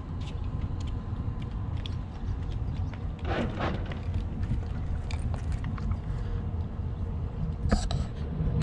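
Low rumble of the Sea Ray 280 Sundancer's Mercruiser 8.2 L V8 idling as the boat eases into its slip, with scattered clicks and knocks and brief louder rushes about three and a half and eight seconds in.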